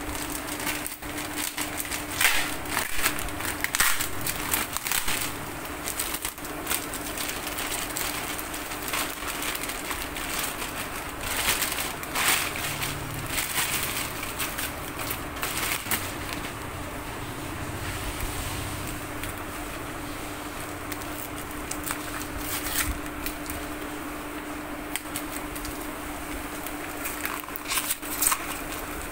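Plastic mailer bag and taped brown paper wrapping crinkling and rustling as a small parcel is unwrapped by hand, with many sharp crackles, busiest in the first half and again near the end.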